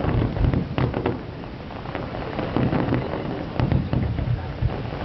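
Aerial fireworks bursting: repeated low booms with sharp crackles and pops in between.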